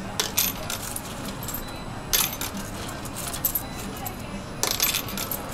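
Coins clinking in a small metal-clasp change purse and being fed into a vending machine's coin slot: an irregular run of sharp metallic clicks and clinks.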